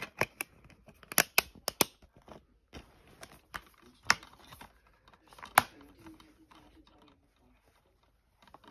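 Plastic DVD case clicking and snapping as it is handled and shut: a run of irregular sharp clicks, the loudest about a second in and again around four and five and a half seconds, dying away near the end.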